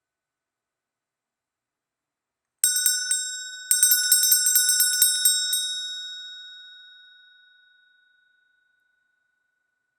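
Small brass Christmas hand bell rung, starting a couple of seconds in: a short shake of a few strikes, a brief pause, then a quicker run of strikes for about two seconds. It rings on after the last strike and fades away over two or three seconds.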